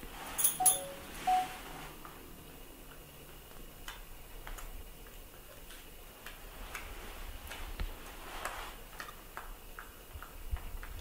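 A few short, high animal squeaks and sharp clicks in the first second and a half, followed by scattered faint clicks and taps.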